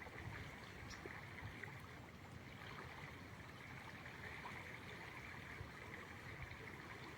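Faint, steady rush of flowing river water, with a low fluttering wind rumble on the microphone.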